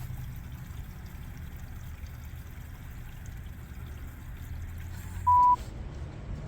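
Camper holding tank draining through a sewer hose: a steady rushing flow of liquid. About five seconds in, a short, loud electronic beep.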